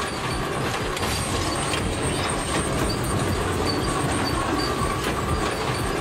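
Sawmill log-processing machinery running: a steady clattering din from the chain log conveyor and saw line, with irregular clacks and faint high squeals.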